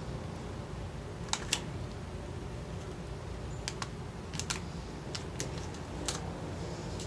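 Cellophane-wrapped masking tape packages handled in the hands, giving scattered light crinkles and clicks, then a soft tap as one package is set down on a cloth-covered table near the end.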